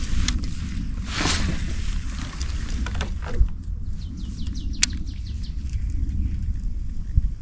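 Wind buffeting the microphone with a steady low rumble, broken by scattered small clicks and a brief hiss about a second in.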